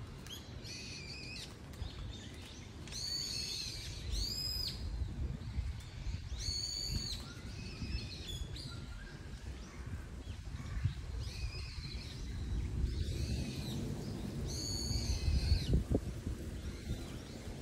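Wild birds calling in the treetops: a dozen or so short, high calls that rise and fall, spaced a second or two apart, over a steady low outdoor rumble. A few soft knocks come near the end.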